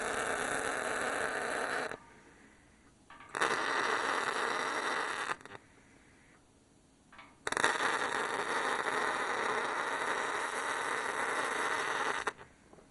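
MIG welder arcing in three runs of steady crackling and sizzling, each starting and stopping abruptly as the trigger is pulled and released: the first ends about two seconds in, the second runs for about two seconds, and the longest lasts about four and a half seconds, ending near the end.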